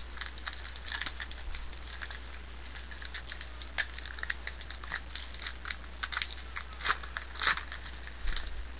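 Baseball trading cards and a pack wrapper being handled: irregular crinkling and quick clicks of card edges, with a couple of louder crinkles near the end.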